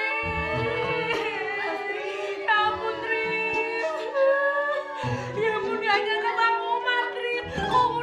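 Background music: a voice singing a slow melody of long, held notes over a soft accompaniment.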